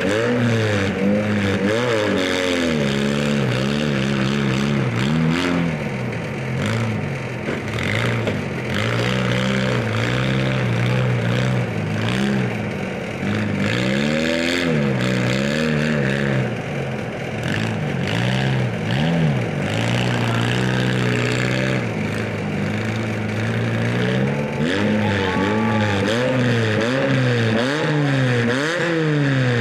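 Several demolition derby compact car engines revving up and down over and over, more than one running at once, with the pitch climbing and dropping every second or two.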